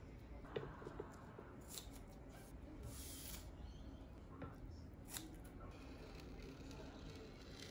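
Faint handling sounds of masking tape being laid and pressed down along a diamond-painting canvas: light clicks and crinkles, and a few short rasps, the longest about three seconds in.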